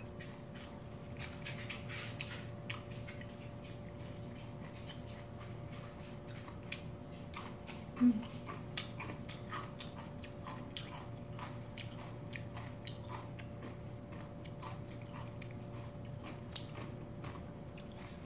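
Close-up eating sounds: chewing and small clicks of chopsticks against a glass bowl of cold noodles, over a faint steady hum. One short, louder low thump about eight seconds in.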